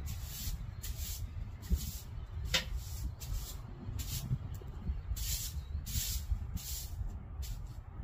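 Outdoor ambience on the porch: a steady low rumble with a string of short, irregular hissing bursts, and one light tick about two and a half seconds in.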